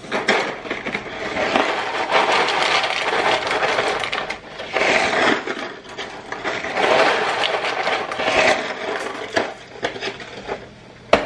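Dry bow-tie (farfalle) pasta being poured into a pot of rapidly boiling water, in a few swells, over the water's bubbling. A single sharp knock near the end.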